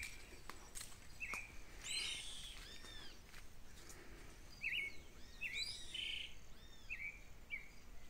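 Several birds calling faintly: short chirps and repeated arching whistled notes over a steady background hiss of open countryside.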